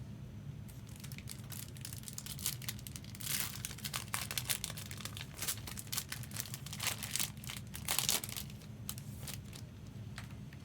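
Foil trading-card pack wrapper being torn open and crinkled, an irregular crackling rustle that starts about a second in.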